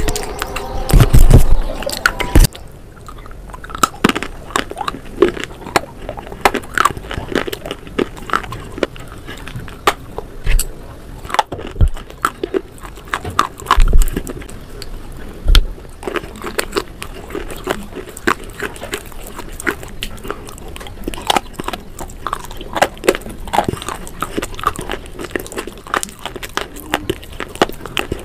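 Close-up biting and chewing of brittle baked clay pot pieces coated in cream paste: a long run of sharp, crisp crunches at irregular spacing, some louder than the rest. The first two seconds are louder, with dull thumps.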